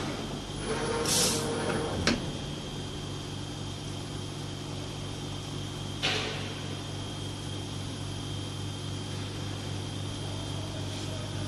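Hot plate plastic welding machine running with a steady low hum. Short hisses of compressed air come about a second in and again about six seconds in, with a sharp clack near two seconds, as the machine's pneumatic cylinders move.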